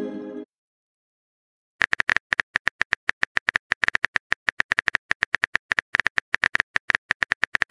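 Keyboard typing clicks from a texting app, a rapid even run of short taps at about seven or eight a second that starts after a pause of over a second. At the very start, the fading tail of the app's message chime.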